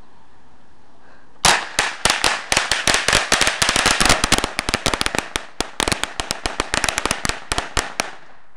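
Small fireworks going off together: a rapid, irregular run of sharp cracks over a hiss that starts suddenly about a second and a half in and thins out near the end.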